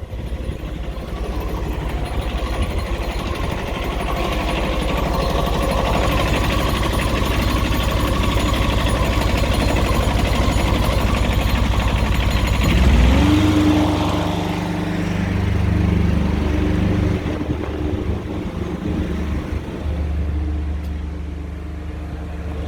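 High-pressure drain jetting machine running, its pump pulsing rapidly with the hiss of water jetting through the hose. About 13 seconds in, a tone rises and holds steady as the machine's sound changes and the hiss fades.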